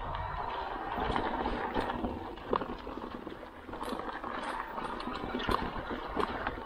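Electric mountain bike rolling over a rough trail: steady rushing tyre and ground noise with frequent sharp knocks and rattles as it hits bumps.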